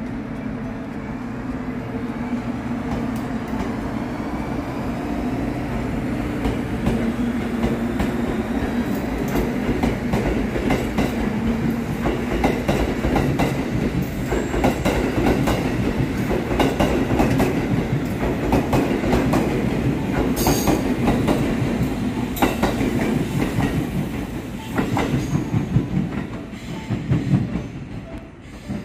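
JR Kyushu 783 series limited express electric train moving off along the track: a steady motor hum with a faint rising whine as it gathers speed, then wheels clacking over the rail joints. The sound fades near the end as the train draws away.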